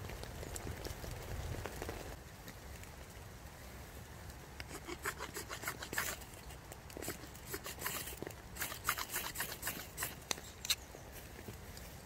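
Ferro rod struck repeatedly with a striker to throw sparks into wood-shaving tinder: a quick run of sharp scrapes from about four and a half seconds in until near the end.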